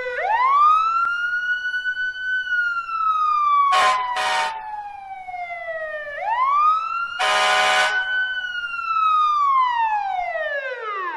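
A fire siren wailing in two slow cycles, each a quick rise followed by a long falling sweep. Two short horn blasts sound about four seconds in and a longer one a few seconds later. The siren cuts off abruptly at the end.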